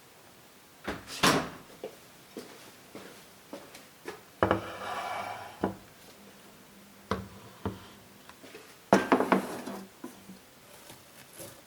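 Kitchen handling sounds: a string of knocks and clatters of cookware and utensils on hard surfaces, with a longer scraping rustle about four seconds in.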